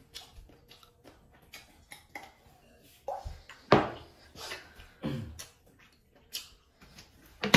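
Eating by hand: fingers scraping and scooping curry and rice on a stainless steel plate, with wet chewing and mouth sounds, a string of short irregular clicks and knocks, the loudest about halfway through.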